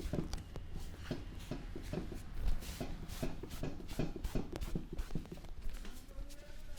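Hands massaging a person's head: an uneven run of soft pats and rubs on skin and hair, about two to three a second.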